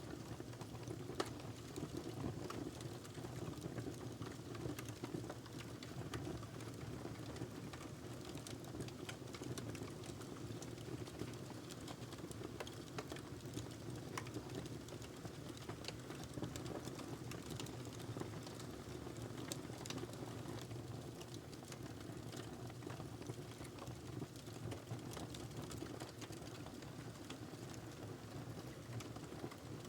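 Log burning in a fireplace, crackling with many small, irregular sharp pops over a steady low rumble of the flames.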